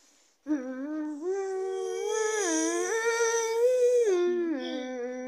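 A voice humming a wordless tune in long held notes that step up and down in pitch, starting about half a second in.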